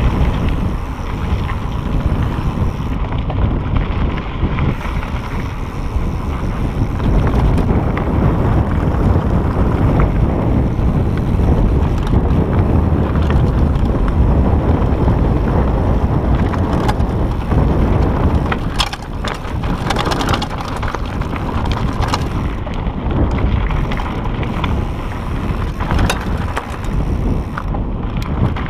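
Mountain bike descending a rocky dirt trail: tyres crunching over gravel and loose stones, the bike rattling, and wind rushing over the microphone. Sharper clicks and clatters come in a thick cluster about two-thirds of the way through, as the bike runs over rougher ground.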